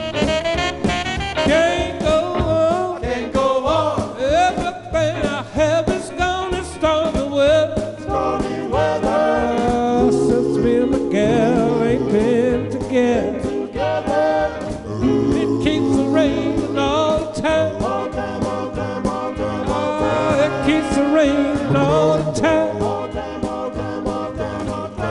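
Doo-wop vocal group singing a slow ballad in close harmony, with a band accompanying.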